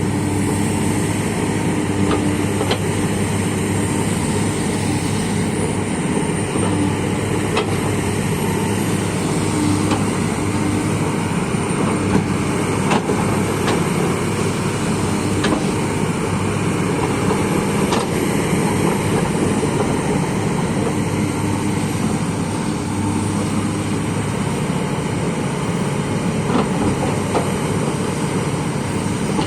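Heavy diesel machinery running steadily, with a constant low hum and a few sharp knocks scattered throughout.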